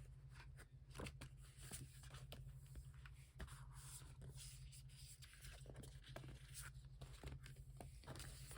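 Faint rustling and light taps of paper and cardboard as the album's inclusions, such as poster, cards and booklet, are pulled out and handled. The sounds are short and scattered, over a low steady hum.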